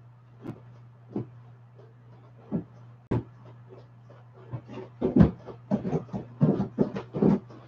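Vinyl of a large inflatable horse squeaking and creaking under a rider's shifting weight: a few separate squeaks at first, then a quick run of them from about five seconds in. A steady low hum runs underneath.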